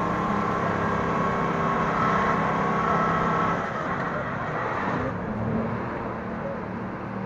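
Nissan Patrol SUV engine running under load as it churns through a muddy stream, over the rush and splash of water. The engine eases off about three and a half seconds in, then picks up again after about five seconds.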